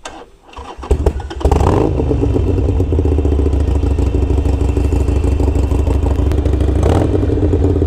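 Harley-Davidson Iron 883 Sportster's 883 cc air-cooled V-twin being started through a Gallop Flying Comet 2-into-1 exhaust. The starter cranks briefly about a second in, then the engine catches with a short flare and settles into a loud, steady idle.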